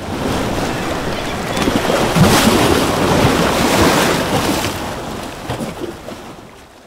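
Sea ambience of waves and wind, a steady rushing wash that swells in the first few seconds and then fades out toward the end.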